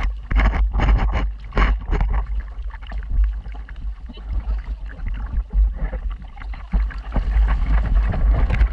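Water rushing and splashing along the hull of a heeling sailboat under sail, with a run of splashes in the first couple of seconds. Heavy wind buffeting on the microphone throughout.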